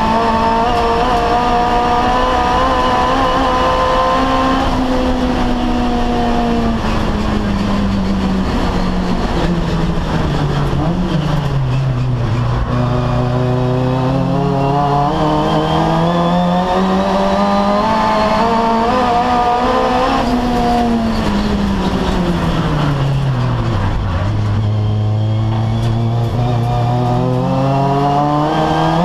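Turbocharged 1.5-litre Mitsubishi 4G15 four-cylinder of a Colt Ralliart race car, heard from inside the cockpit under hard racing. It holds high revs for the first few seconds, then falls away as the car brakes and changes down. It climbs again for several seconds, drops once more about three quarters of the way through for a slow corner, and starts to climb again near the end.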